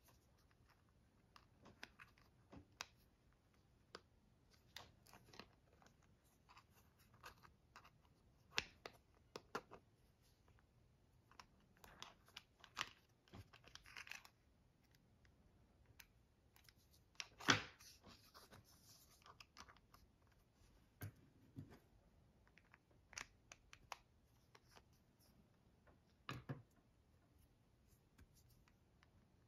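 Faint, scattered clicks, taps and short scrapes of a .22LR cartridge loading tray and its base being handled, with the small cartridges rattling in the tray's holes; one louder clack a little past the middle.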